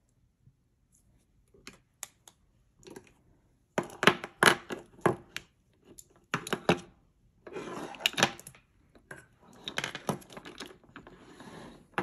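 Lipstick tubes clicking and clacking against each other and the wooden tabletop as they are gathered and lined up in a row. The clicks come sparsely at first, then in quick clusters from about four seconds in, with light rustling from the handling.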